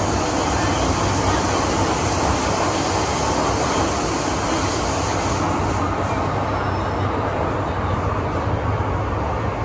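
MTR M-Train electric multiple unit running, heard from inside the car: a steady rumble of wheels on rail with hiss on top. The hiss drops away a little past halfway.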